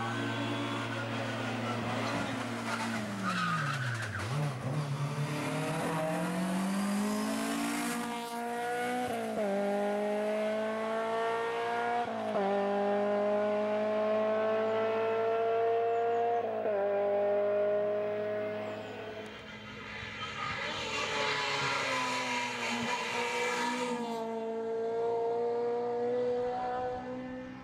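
Honda Integra 1.8i race car's engine driven hard up a hillclimb. Its note drops briefly, then rises again in long climbs, each cut off by a sudden drop in pitch as it shifts up a gear, three times in the middle of the run. The car then passes and fades toward the end.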